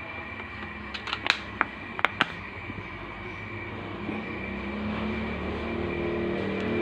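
Cooking oil poured into a bare steel wok on the stove. A few sharp clicks come about a second in, then a hiss grows steadily louder as the wok heats.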